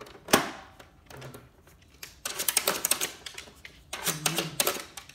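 A dog pawing and nosing at the hard plastic lid of an automatic pet feeder: rapid clattering and tapping of claws and plastic, with a sharp knock about a third of a second in and quicker runs of clicks after two seconds and again near four seconds.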